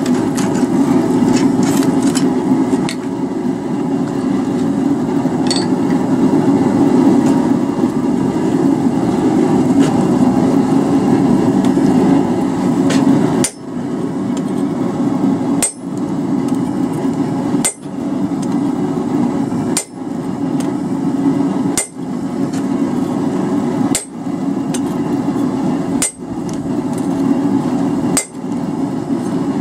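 Fast, continuous hammer blows on a chisel held upright on a steel feather blank on the anvil, cutting the feather's barbs. From about halfway through, the hammering comes in runs broken by a short pause about every two seconds, as the chisel is moved along.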